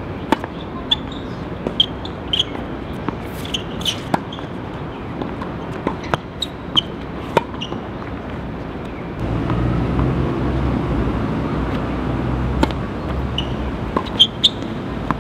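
Tennis balls being struck by racquets and bouncing on a hard court: sharp, irregular pops, several a second at times. A low steady rumble comes in about nine seconds in and fades near the end.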